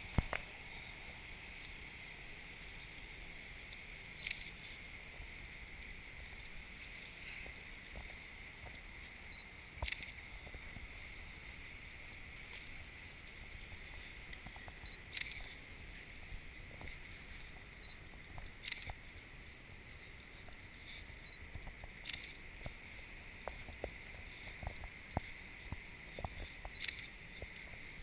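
Faint steady hiss with scattered light clicks and knocks every few seconds.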